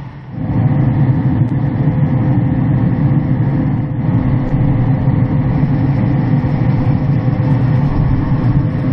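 Traeger wood pellet grill running with its lid open: a loud, steady low hum and rush from its draft fan and burning pellet fire, with a faint steady whine over it.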